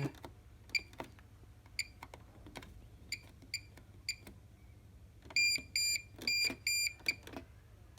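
Bosch HomeProfessional WAY32541NL washing machine control panel beeping as its settings are stepped through. There are about six short single beeps spaced roughly half a second to a second apart, with faint clicks between them. Starting around five seconds in comes a quicker run of about five longer beeps.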